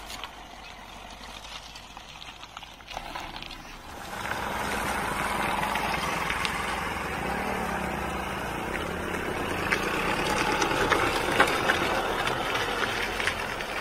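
Hyundai Verna sedan driving on a rough mountain road, its engine running. The sound gets clearly louder about four seconds in and stays up.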